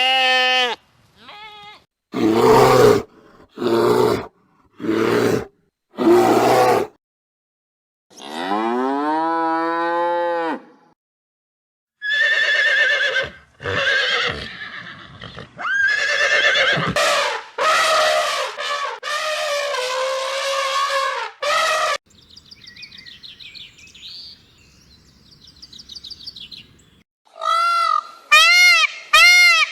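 A series of farm animal calls in separate clips: four short loud calls, then one long low moo from a cow about eight seconds in, a stretch of overlapping calls, and three goat bleats near the end.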